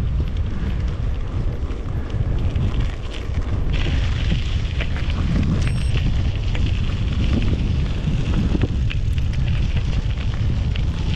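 Strong headwind buffeting the microphone of a camera on a moving mountain bike: a loud, steady low rumble, with a brighter hiss joining about four seconds in.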